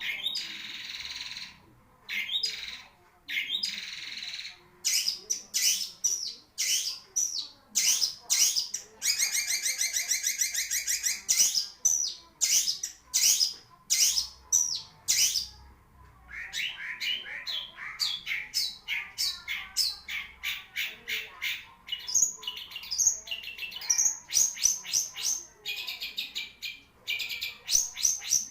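Long-tailed shrike (cendet) singing a long, varied song of sharp chattering notes and fast trills, with short pauses between phrases.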